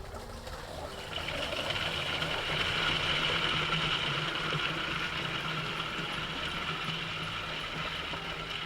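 Toilet flushing a bowl packed with breakfast cereal: water rushing, starting about a second in and slowly easing off.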